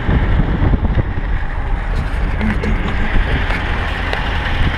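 VAZ-2106 (Zhiguli) car driving slowly: a steady low engine and road rumble, with a few sharp knocks or rattles from the car.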